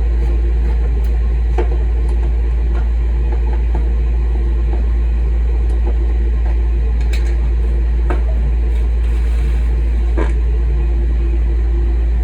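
Ruud furnace ECM blower motor running steadily: a loud, even low rumble of moving air with a steady hum and a few light ticks.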